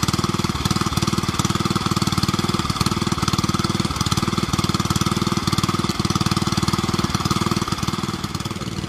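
Engine of a pond-draining water pump running steadily at a fast, even beat.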